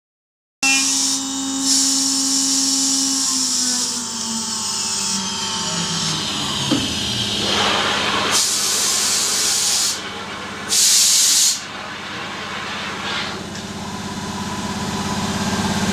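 NC router machine running: its whine slides steadily down in pitch, then loud rushing hisses of air, one long and one short, and a steady machine hum that grows louder toward the end.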